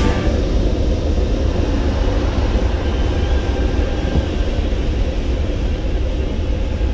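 Steady low rumble and rushing air in the cockpit of a DG1000 glider as it lands on a grass airfield.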